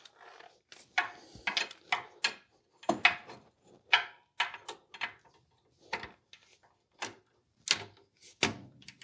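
Ratchet of a long torque wrench clicking in short, irregular runs of sharp clicks while loader mounting-frame bolts are being tightened.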